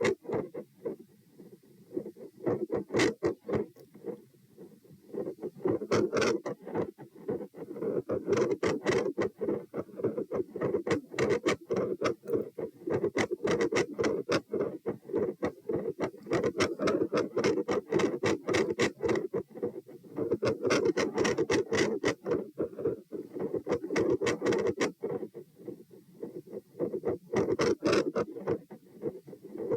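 Heartbeat heard through a stethoscope against the chest: a fast run of short knocking beats mixed with scratchy rubbing noise. The beats swell and fade in waves every few seconds.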